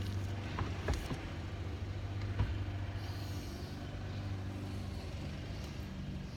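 A steady low hum from an idling engine, with a few light clicks and knocks, about a second in and again about two and a half seconds in.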